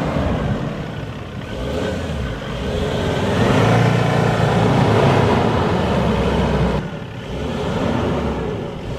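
Ford Endeavour 3.2's five-cylinder diesel engine pulling the SUV through deep loose sand, revving and getting louder through the middle, then dropping off briefly about seven seconds in.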